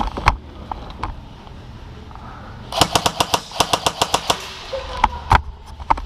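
Airsoft guns firing: a few single shots, then a rapid string of shots about three seconds in, around ten a second for about a second and a half, then a couple more single shots.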